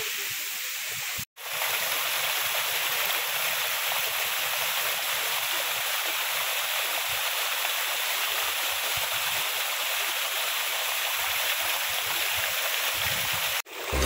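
Steady rush of a waterfall's falling water, an even hiss. It cuts out for an instant about a second in and again just before the end.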